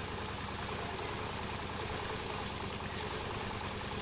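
A machine's engine running steadily with an even low throb, and liquid septic-tank sludge flowing along plastic-lined field furrows.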